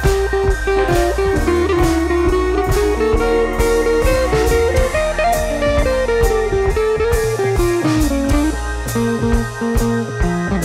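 Background music: a guitar melody over a low bass line and a steady drum beat.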